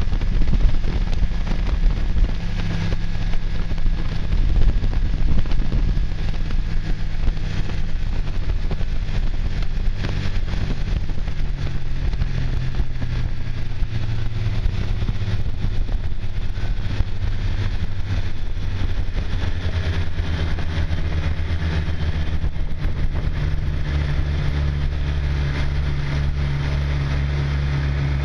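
Snowmobile engine running as the machine comes across the snow. Its low, even drone grows fuller and steadier in the last several seconds as it pulls up close.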